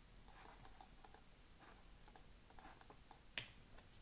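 Faint, irregular clicking of computer keyboard keys being typed, with one sharper keystroke near the end.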